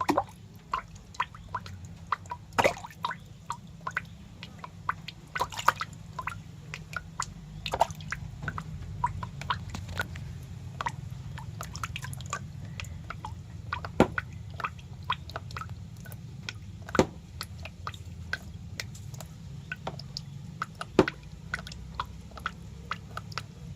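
Irregular wet clicks and drips, some loud, over a low steady hum.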